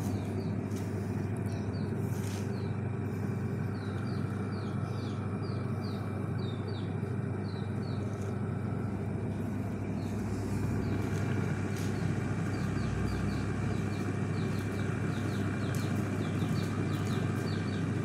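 Samsung top-loading washing machine running on a test after its control module was replaced: a steady motor hum with the tub churning its load.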